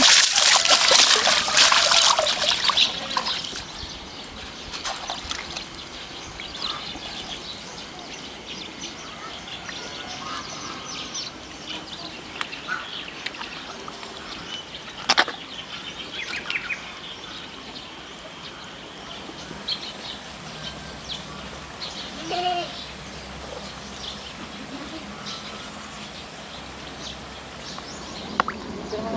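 Water splashed by hand over a water buffalo in a muddy pool, loud for the first two seconds or so. Then a quieter open-field background with bird calls, a steady high hiss and a sharp snap about halfway through.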